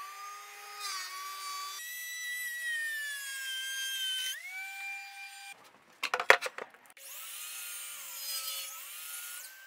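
DeWalt thickness planer running with a board feeding through: its motor pitch sags under the cut and jumps back up as the board clears, about four seconds in. A few sharp, loud knocks follow, and then a DeWalt sliding miter saw spins up and cuts through the board, its pitch dipping under load.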